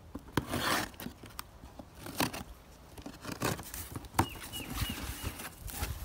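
Cardboard box being opened by hand: flaps pulled open and folded back, with scrapes, rustles and a few sharp knocks scattered through.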